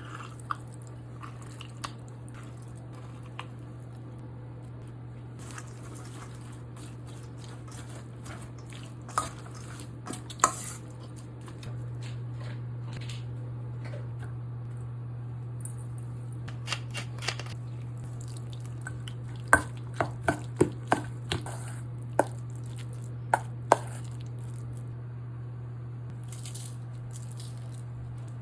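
Food being cut on a cutting board: scattered sharp knife knocks, with a run of about eight strokes past the middle, over a steady low hum that gets a little louder partway through.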